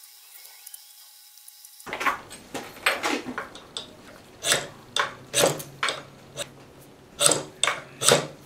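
A ferrocerium fire-steel rod scraped down the filed, squared-off spine of a fixed-blade knife held in a vise, testing that the spine will strike sparks. About two seconds in it starts as a run of about a dozen quick, sharp scraping strokes.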